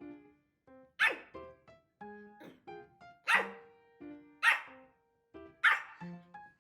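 Pomeranian barking: four loud, sharp barks one to two seconds apart. Light background music with short plucked notes plays underneath.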